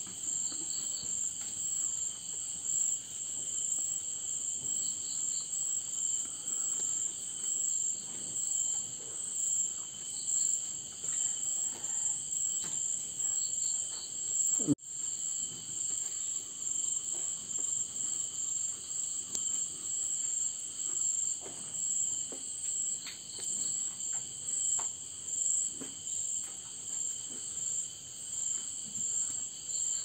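Night insect chorus: a steady high-pitched trill with a second, lower steady trill, and short pulsed chirps that come in little groups every second or two. A single sharp click cuts in about halfway through.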